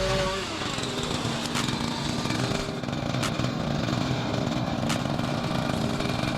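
A small gasoline engine running steadily, with a few sharp clicks.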